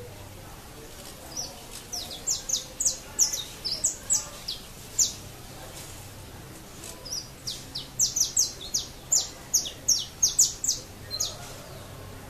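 Saffron finch (canário-da-terra) singing: two phrases of quick, sharp notes, each falling in pitch. The first phrase comes about two seconds in, the second about eight seconds in.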